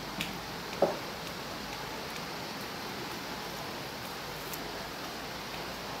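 Steady outdoor hiss with small handling sounds of leaves and tape being worked on a canvas; one short tap about a second in.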